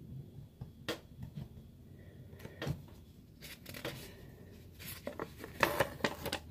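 A pen writing on a sticky-note pad with a few light taps, then the paper sticky note being peeled off and handled, rustling and crackling more densely in the second half.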